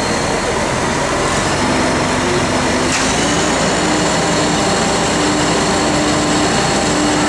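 Hitachi hydraulic excavator's diesel engine running steadily under a constant wash of machine noise.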